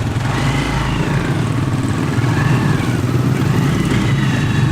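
Small vehicle engine, of motorcycle size, running steadily.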